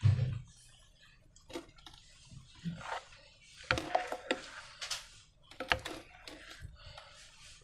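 Hands handling slime-making materials and balloons. A low thump comes at the start, then scattered clicks, taps and crinkly rustles.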